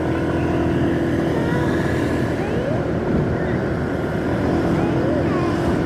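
Steady drone of a vehicle engine with road noise while travelling along a highway, with other traffic going by.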